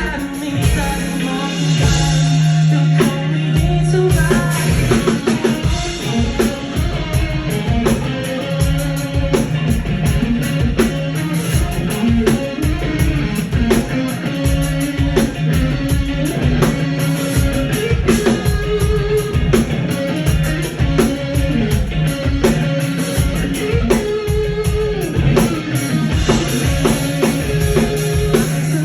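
A band playing a pop-rock song: drum kit keeping a steady beat under guitar, with singing.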